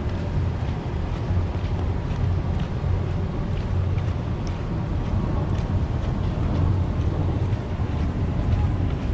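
Wind buffeting the microphone in a steady low rumble, with faint scattered ticks over it.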